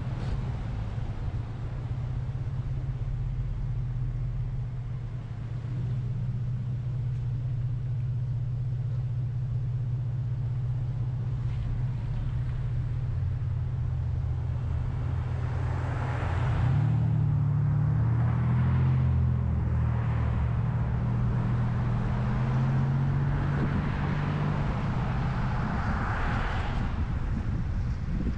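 A car being driven: a steady low engine and road hum whose pitch shifts about seventeen seconds in, with swells of rushing noise around sixteen and twenty-six seconds.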